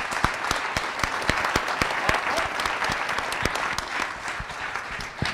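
Audience applauding: many people clapping together, easing off a little near the end.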